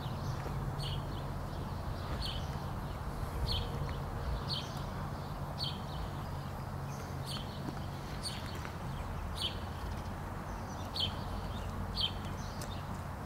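A bird chirping, one short high chirp about every second, over a low steady hum and outdoor rumble.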